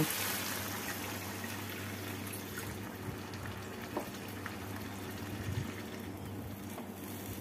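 Water poured into a hot pan of fried mustard-paste and yogurt masala, the sizzle fading within about the first second to a low, even hiss. A silicone spatula then stirs the thinned gravy, with a couple of light taps.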